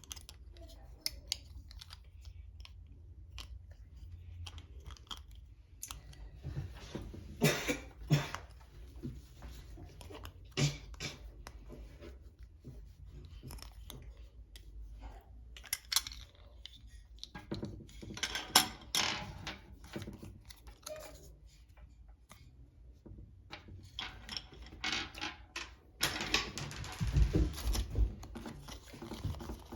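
Hands unwrapping a plastic surprise-ball toy package: plastic wrapping crinkling and tearing in short bouts, with scattered clicks and taps of small plastic pieces. The longest, loudest bout of crinkling comes near the end.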